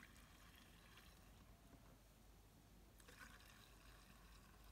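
Very faint: gasoline poured through a small funnel into a chainsaw's fuel tank, a soft trickling hiss in two short spells, the second about three seconds in.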